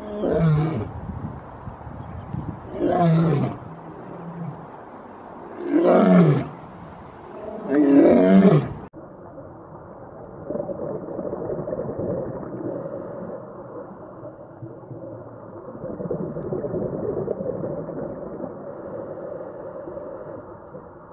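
A lion roaring: four deep calls about two to three seconds apart, each falling in pitch. About nine seconds in, the sound cuts off abruptly to a steady, dull underwater hiss.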